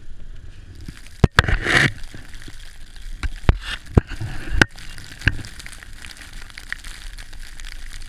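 Wind and driving snow against a moving vehicle in a blizzard, a steady hiss that swells about a second in. Over it come a run of sharp knocks and cracks through the first five seconds or so.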